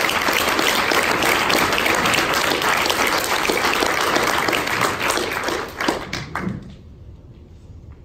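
Audience applauding at the end of a talk, dying away about six and a half seconds in.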